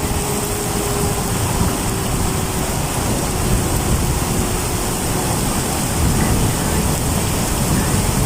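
Heavy rain and strong wind: a steady hiss with a low rumble of wind buffeting the microphone.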